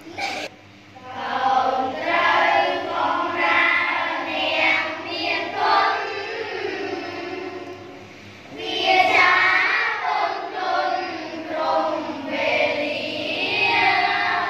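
A class of children chanting a Khmer verse together in a sing-song unison recitation, with a short break about eight seconds in.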